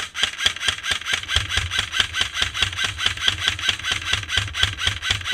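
Airsoft electric gun firing a long full-auto burst, an even rattle of about seven or eight shots a second over the hum of its gearbox motor.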